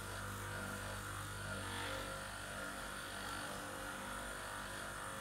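Muscle Hammer percussion massage gun running with a steady motor hum, its head working against the muscles of the side of the back and outer shoulder.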